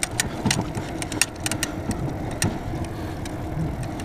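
Bicycle rolling over cracked, patched asphalt: a steady low rumble of wind and road noise on the handlebar camera, with irregular sharp clicks and rattles from the bike as it jolts over the cracks.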